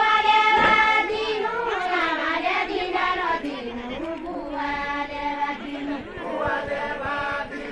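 A group of women singing a folk song together, with long held notes that slide between pitches.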